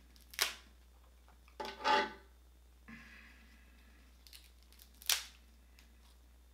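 King crab leg shell cracked and snapped apart by hand: three sharp cracks, about half a second in, around two seconds (the loudest and longest, a crunching crack) and around five seconds, with small clicks and rubbing of shell between.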